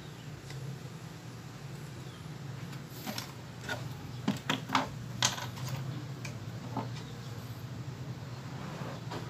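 Hands handling a CRT television's circuit board and chassis: a cluster of sharp clicks and knocks about three to five and a half seconds in, and a couple more near seven seconds, over a steady low hum.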